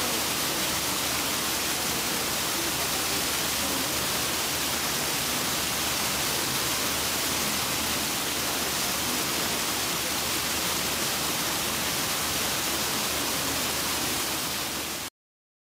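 Steady rushing noise, even and unbroken, that fades slightly and then cuts off abruptly near the end.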